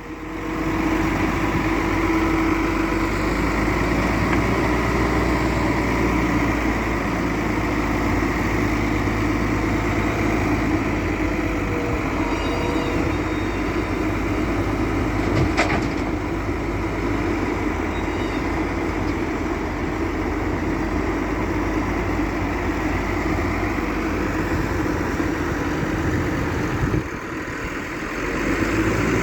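Develon wheel loader's diesel engine running steadily while loading soil, with a single sharp click about halfway through and a brief dip in level near the end.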